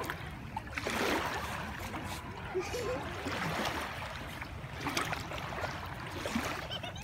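Small waves lapping and washing up onto a sandy, gravelly shore, with the hiss of the wash swelling every couple of seconds.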